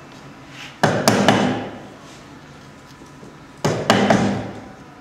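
Wood chisel being struck into timber while chopping out a lock mortice: two bursts of about three quick blows each, roughly three seconds apart.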